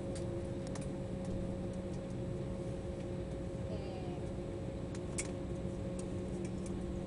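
Steady cabin hum inside an Embraer 190 jet taxiing after landing, from its idling turbofan engines and cabin air, with a few steady droning tones. Scattered light clicks and rattles, the sharpest about five seconds in.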